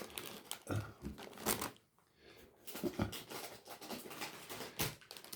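Plastic snack packets crinkling and rustling as they are handled, in uneven bursts with a short pause about two seconds in.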